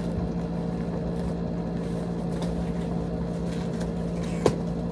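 Steady electrical hum of a fan or similar small motor, under faint rustling as plastic bubble-wrap packaging and cardboard helmet boxes are handled. One sharp snap about four and a half seconds in.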